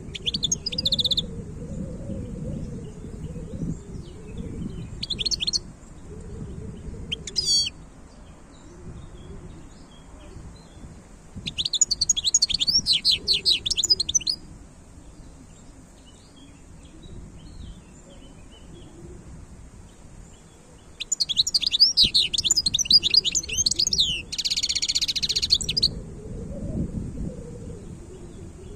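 European goldfinch singing in bursts of rapid, liquid twittering. There are short phrases in the first few seconds, then longer runs of song about 12 seconds in and again from about 21 seconds, over a low background rumble.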